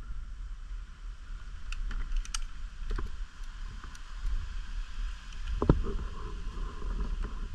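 A few scattered sharp clicks, then one louder knock a little after halfway, over a steady low rumble.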